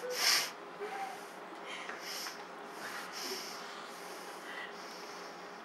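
A person breathing: one sharp, hissy breath or sniff right at the start, then three or four softer breaths spread through the rest, over quiet room tone.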